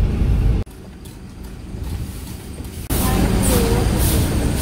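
Low rumble of a car driving slowly over a rough dirt road, heard from inside the cabin, which cuts off abruptly about half a second in. After a quieter stretch, steady loud outdoor noise starts suddenly near the end.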